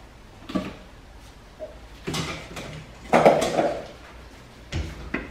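Kitchen bowls and dishes clattering as they are taken from under the counter and set down: a few separate knocks, the loudest about three seconds in.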